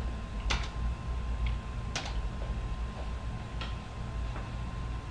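A steady low hum and a faint steady high tone, broken by about five short, sharp clicks at irregular intervals.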